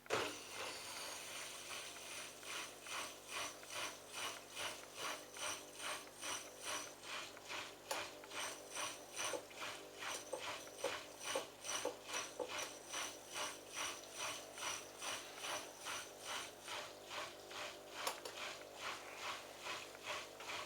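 Bosch Logixx washing machine running its drain cycle: a mechanical whirr pulsing evenly about twice a second, with a faint steady high whine, as the drain pump works the remaining water out.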